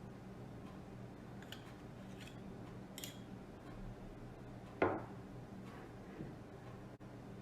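Kitchen handling sounds: a few light clicks, then one sharp louder knock about five seconds in and a softer one a second later, over a steady low hum.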